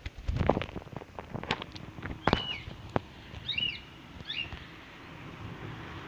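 Cockatiels landing on a hand: a burst of wingbeats and landing knocks in the first second or two, then a few short, arching cockatiel chirps around the middle.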